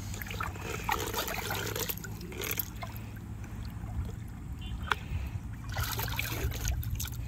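Shallow water splashing and trickling as a hooked rohu carp thrashes at the surface and is grabbed by hand.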